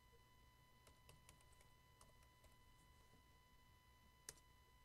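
Near silence with a few faint computer-keyboard keystrokes as a command is typed, one click sharper about four seconds in, over a faint steady hum.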